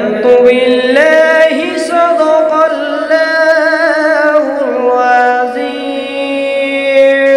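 A man's voice reciting the Quran in slow, melodic tajweed style through a microphone, drawing out long ornamented notes. The pitch rises about a second in, then falls back after about four and a half seconds into one long held note.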